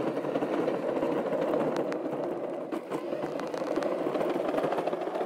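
Car in motion heard from inside the cabin: steady tyre and road noise with the engine running, and a few faint clicks.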